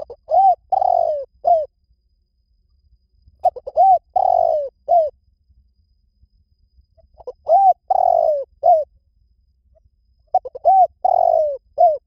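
Spotted dove cooing: four phrases about three and a half seconds apart, each a few short notes around one longer falling coo.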